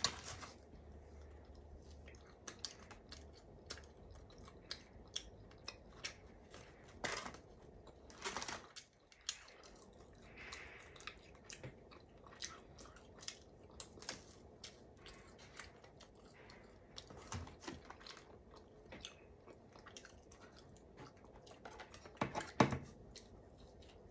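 Close-miked chewing of a soft, bready coconut pretzel: a steady run of small, wet mouth clicks. A few louder bites stand out about a third of the way in and again near the end.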